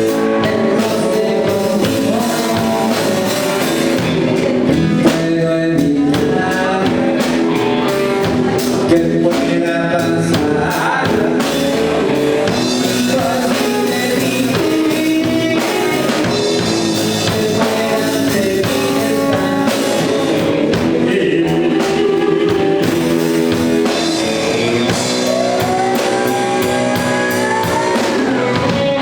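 A blues song played by a band with guitar and drum kit, with a singing voice.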